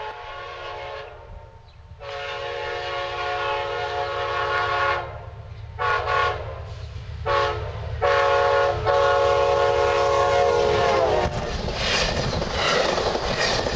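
Diesel locomotive air horn sounding a series of blasts of several notes at once, two short and three long, over the low rumble of a train. The last long blast sags in pitch as it ends, and the rush and clatter of the passing train follows.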